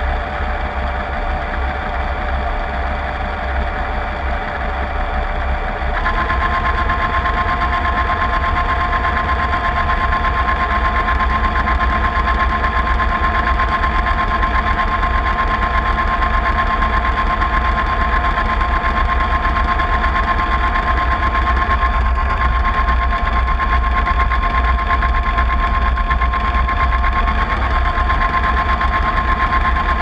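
Drive of a model tug with Voith Schneider propellers, running with a steady mechanical hum heard through the camera mounted on its deck. About six seconds in it gets louder and a steady high whine joins the hum.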